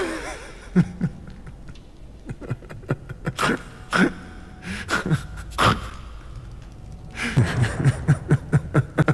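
A man laughing: a few short breathy snickers, then a quick run of 'heh heh' pulses, about five a second, from about seven seconds in.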